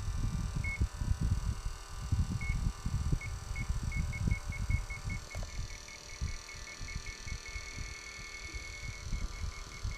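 A multimeter's non-contact voltage (NCV) detector beeping as it senses a live AC field: short high beeps, scattered at first, then coming quickly, about three a second, and almost running together in the middle, before slowing again near the end. A low, uneven rumble runs underneath and is the loudest sound.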